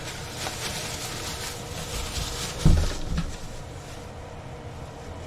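Toilet being test-flushed after its supply line and shut-off valve were replaced: water rushing through the bowl for about three seconds and then easing off, with one dull thump partway through.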